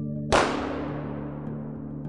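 A single gunshot: a sharp crack about a third of a second in, then a long echoing tail that fades slowly. Steady background music runs underneath.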